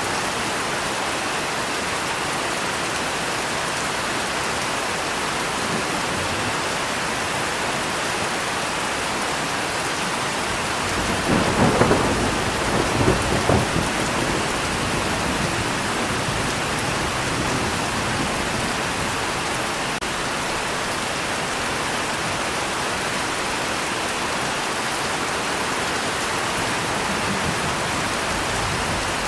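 Steady heavy rain falling, with a clap of thunder rumbling through it for about three seconds near the middle.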